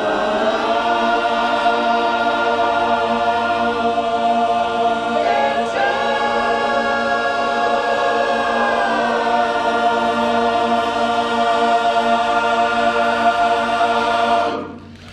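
Barbershop chorus singing a cappella, holding the long final chords of a song. The chord shifts about five or six seconds in, then is held until all voices cut off together near the end.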